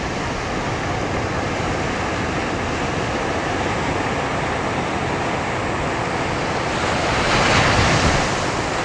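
Ocean surf washing up a sandy beach in a steady rush, swelling as a bigger wave breaks about seven to eight seconds in.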